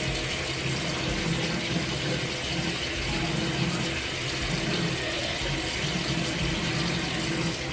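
Bathroom faucet running steadily into the sink.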